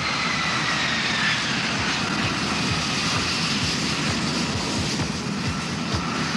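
Jet airliner engines running as the aircraft taxis: a steady rushing roar with a high whine that slowly falls in pitch.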